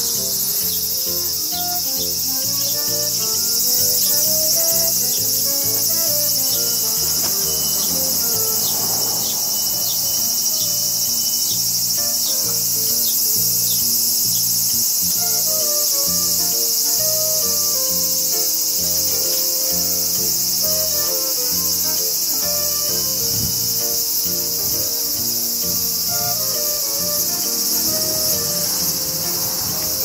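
Cicadas droning in a steady, high-pitched summer chorus that does not let up.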